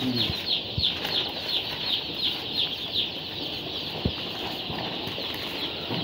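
A crowd of day-old brown cockerel chicks peeping: a steady stream of short, falling high chirps, several each second.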